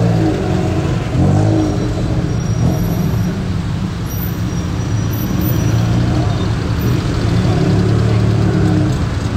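Tuk-tuk engines running in city traffic, the pitch rising and falling a few times as they rev, over road noise.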